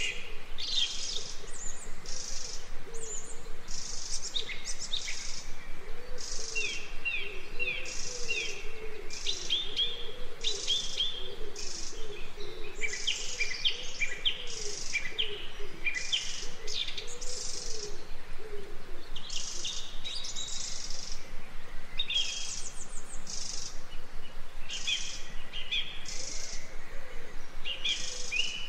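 Several birds singing together: high chirping phrases repeat about once a second, mixed with quick falling trills. From about six seconds in, a lower wavering call runs underneath for some twelve seconds.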